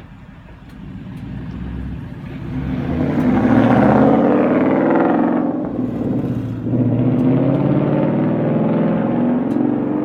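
2014 Ford Mustang GT's 5.0-litre V8 running through Corsa Xtreme axle-back mufflers with the resonators deleted, a loud exhaust note. It builds over the first few seconds, eases off around the middle, then picks up again and holds.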